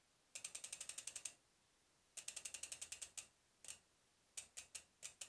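Kona Process 153 mountain bike's rear freehub pawls clicking rapidly, about ten clicks a second, as the cranks are turned by hand to run the chain through a newly fitted chain guide. There are two bursts of about a second each, then a few shorter ones near the end.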